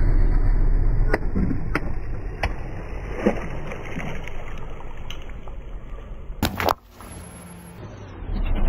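Car tyre rolling over water-filled balloons, bursting them, with water splashing and spraying across the asphalt and a low rumble at the start. Several sharp pops and splashes follow in the first few seconds, and there is a short loud noise about six and a half seconds in.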